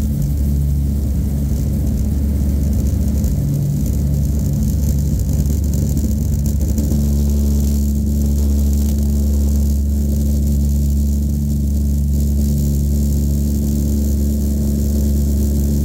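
A Douglas DC-3's radial piston engines running steadily as the plane taxis, heard inside the cabin as a loud, even, low drone.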